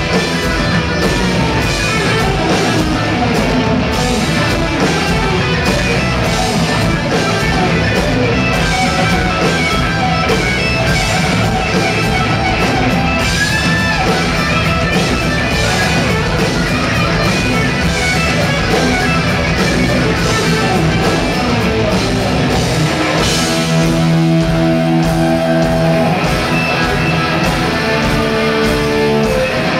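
Hard rock band playing live, loud, with electric guitar to the fore over drums. About three-quarters of the way in, the playing turns to long held notes.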